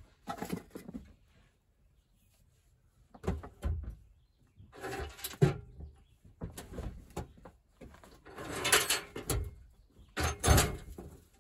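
Metal parts of a Logan lathe clanking, scraping and rattling as they are handled and shifted, in about six short bursts with quiet gaps between.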